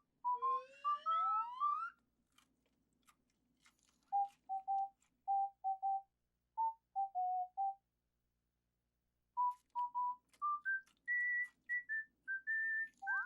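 A whistled tune of short, clear notes stepping up and down, with a long rising slide in pitch about half a second to two seconds in and a pause of about a second and a half near two-thirds of the way. Faint clicks are scattered between the notes.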